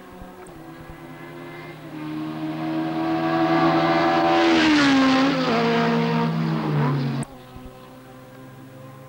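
A car passing at speed. Its engine note builds as it approaches, drops in pitch as it goes by, and then cuts off abruptly about seven seconds in, leaving a quieter steady engine hum.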